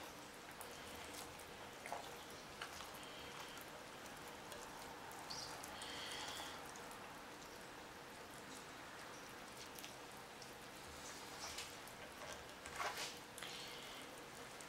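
Faint, soft handling sounds of cabbage rolls being squeezed and pressed into a slow cooker's insert, with a few light ticks and taps scattered through, over a faint steady hum.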